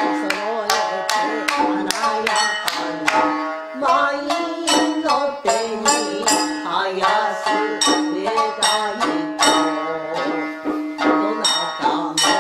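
Japanese geisha party song: shamisen plucked in a quick, steady rhythm with drum strikes, and a voice singing the melody over it.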